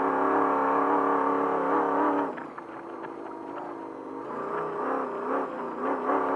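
Trophy truck race engine running at steady high revs, then easing off about two seconds in, dropping in pitch and loudness, with the revs rising and falling after that as the truck runs over the dirt track.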